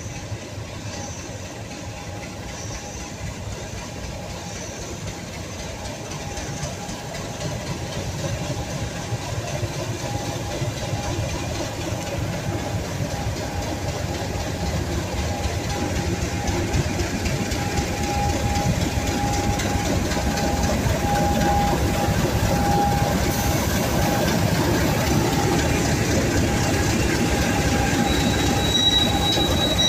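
Class 50 diesel locomotive, its English Electric 16-cylinder engine running, growing steadily louder as it rolls in and draws alongside, with a steady whine over the engine. A high, thin wheel squeal starts near the end as it slows.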